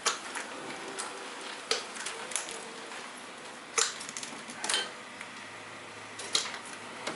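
Sharp metallic clicks and knocks of hand tools at work, about half a dozen scattered irregularly over a steady hiss.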